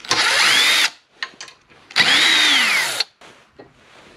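Cordless drill spinning out the valve cover bolts on a small overhead-valve engine in two short runs, each with a whine that rises and then falls as the trigger is pulled and let go. Light metal clicks come between the runs and after.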